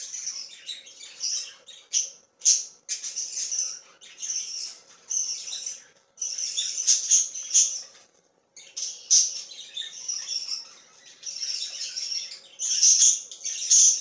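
Budgerigars chirping and squawking in rapid, raspy, high-pitched runs, with brief pauses about six and eight seconds in.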